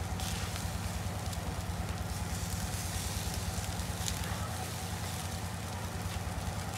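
Meat sizzling on a wire grill over a charcoal fire: a steady hiss with fine crackling and a couple of sharper pops, one at the start and one about four seconds in, over a steady low rumble.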